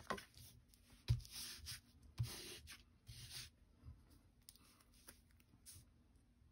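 Cardstock pieces rustling and sliding over each other and over a cutting mat as they are moved around, with a few soft taps as pieces are set down. The scrapes come mostly in the first three and a half seconds, with one more brief rustle near the end.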